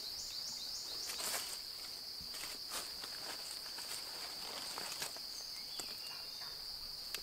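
Steady high-pitched drone of insects, with scattered rustles and crackles of dry leaf litter. A quick run of short falling chirps sounds right at the start.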